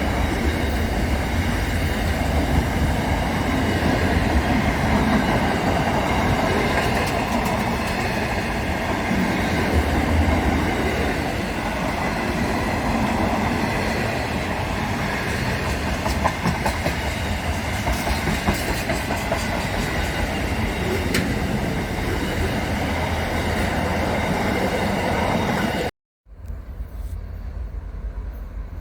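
Train running on the rails: a steady loud rumble with wheel clatter. Near the end it cuts off abruptly, and a much quieter background follows.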